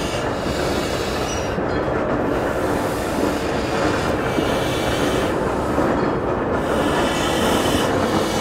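A diesel shunter and BR Standard Class 4MT tank locomotive 80105 rolling slowly over yard track. The wheels make a steady rumble and grinding on the rail, with high squeals that come and go every second or two.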